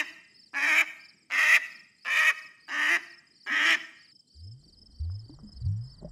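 A duck quacking: a run of loud, short quacks about three-quarters of a second apart, ending about four seconds in. After that comes a series of low, rising whoops at a similar pace.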